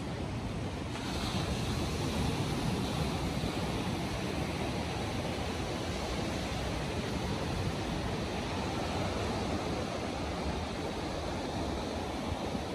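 Steady outdoor rushing noise of wind and surf, with a brighter hiss coming in about a second in.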